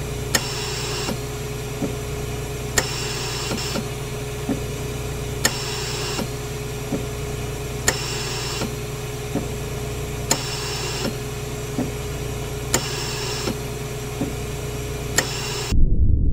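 Steady machine-like hum with a constant tone, a sharp click about every three-quarters of a second, and a hiss that comes and goes in stretches of about a second. Near the end it cuts off suddenly and a louder low rumble takes over.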